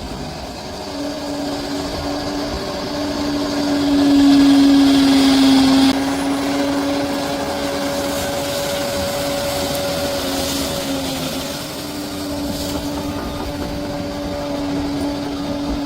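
Large bulldozer's diesel engine running steadily, with a louder stretch about four seconds in that drops off suddenly near six seconds.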